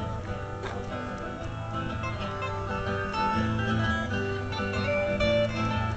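Music led by plucked acoustic guitar, in a country style.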